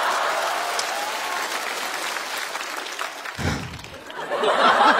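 Studio audience applauding; the applause thins out about three seconds in and swells again near the end. A short low thump sounds just as it dips.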